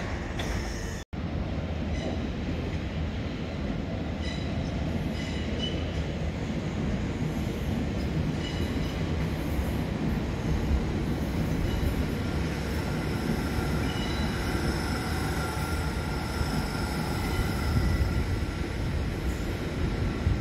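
Southern class 377 Electrostar electric multiple unit moving slowly through a station platform. The wheels on the rails make a steady rumble, with faint high-pitched wheel squeal.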